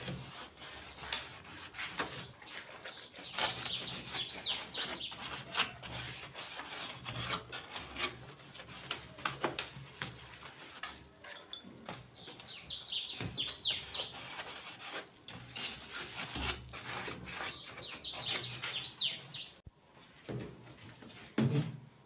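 Sponge scrubbing and wiping the plastic tub and lid of a twin-tub washing machine: uneven rubbing with small clicks and knocks. Birds chirp in short bursts of quick falling notes, three times.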